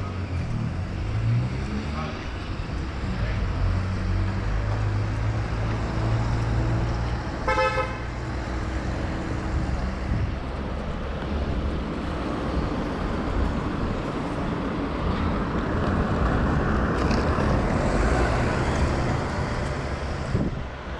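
Street traffic: car engines running and passing, with one vehicle's engine rising as it pulls away near the start. A single short car horn toot comes about seven and a half seconds in.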